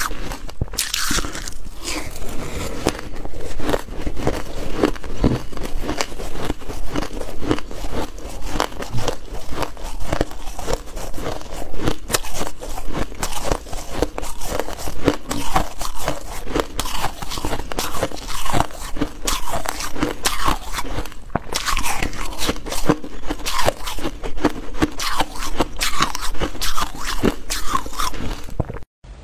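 Shaved ice being bitten and chewed, a dense, continuous crunching crackle of many small cracks, cutting off abruptly near the end.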